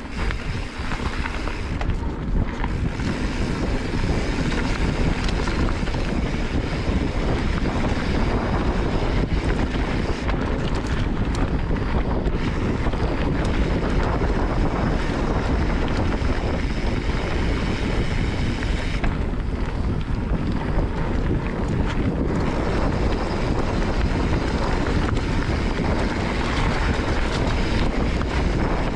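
Wind rushing over a GoPro microphone as a mountain bike rides fast on a loose, dry dirt trail, with the noise of the ride underneath. It stays loud and steady, with brief dips about two seconds in and again around twenty seconds in.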